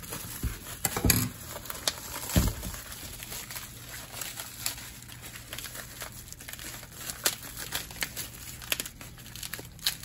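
Plastic bubble wrap crinkling and rustling as it is cut open and pulled off by hand, with irregular crackles throughout and a few louder ones in the first few seconds.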